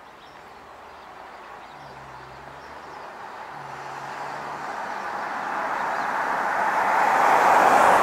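A car approaching along the road, its tyre and engine noise growing steadily louder and close by near the end.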